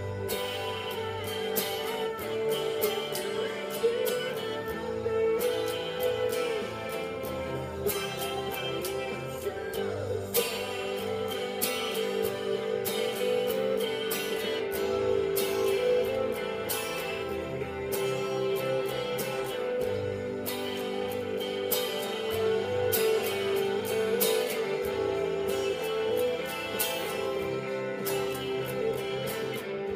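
Telecaster electric guitar strummed and picked in time with a rock band recording that has drums and vocals; the music runs without a break.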